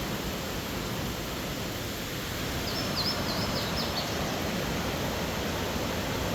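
Steady rushing roar of Burgess Falls, a 130-foot waterfall on the Falling Water River, heard from above the gorge. A bird chirps a quick run of high notes about three seconds in.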